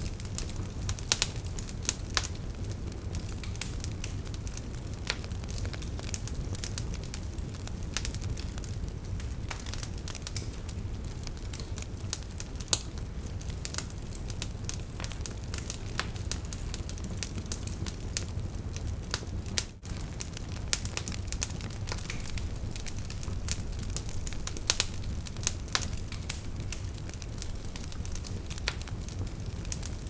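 Wood fire crackling: irregular sharp pops and snaps over a steady low background. The sound dips out briefly about twenty seconds in.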